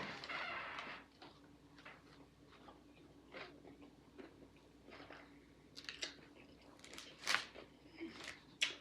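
A person chewing and biting into a sandwich with crunchy chicken, making irregular short crunches and mouth sounds.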